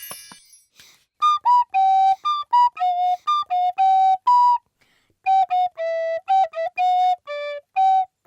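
Recorder playing a charming little tune of short, separately tongued notes, with a short pause about halfway through.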